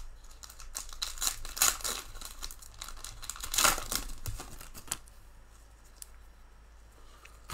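Foil wrapper of a trading-card pack being torn open and crinkled by gloved hands, in a run of irregular rips and rustles; the loudest tear comes about three and a half seconds in.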